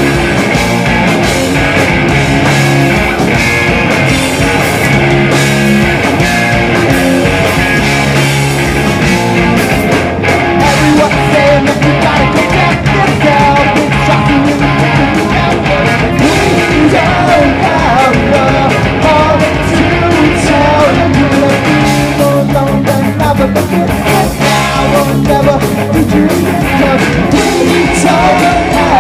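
Punk rock band playing live and loud: electric guitars, bass guitar and drums.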